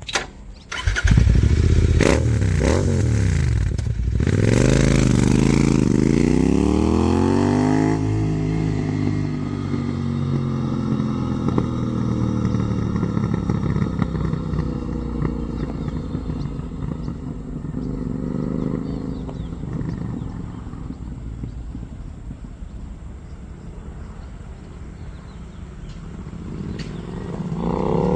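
Royal Enfield Continental GT 650's parallel-twin engine through an AEW megaphone silencer, revving hard as the bike pulls away, with a few sharp cracks in the first seconds. Its pitch falls as it passes and goes away, and the engine note fades, then grows louder again near the end as the bike comes back.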